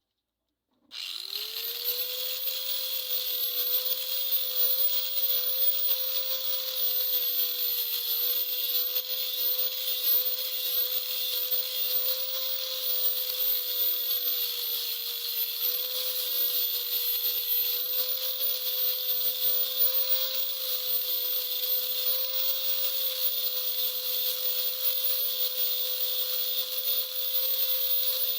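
An electric power tool switching on about a second in and running at a steady, unchanging speed, with a constant whine over a hissing rush.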